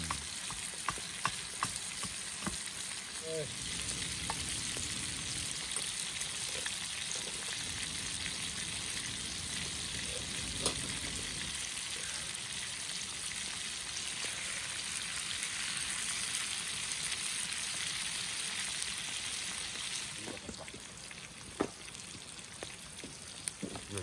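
Chicken, sausages and tomatoes sizzling in a frying pan over campfire embers: a steady hiss with scattered sharp pops. The sizzle softens near the end.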